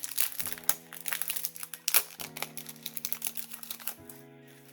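Packaging crinkling and rustling in the hands as a wrapped item is opened, with one sharp crackle about two seconds in, over soft background music.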